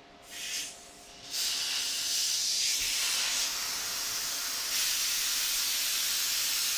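High-pressure air being bled off from an SCBA air bottle through its valve: a short hiss, then a steady, loud rushing hiss from about a second in, as the bottle is let down from well over 3,000 psi.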